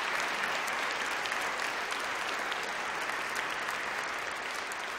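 Concert audience applauding in a hall, a steady, dense clapping that begins to die down near the end.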